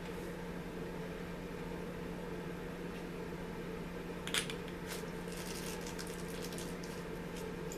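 Steady low background hum with a few light clicks and ticks of small parts and tools being handled, the sharpest about four and a half seconds in.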